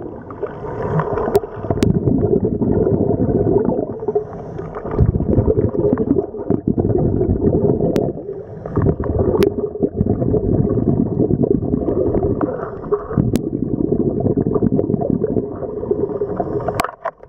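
Scuba regulator breathing heard underwater: exhaled air bubbling out in long bursts, broken by brief pauses between breaths, with a few faint clicks.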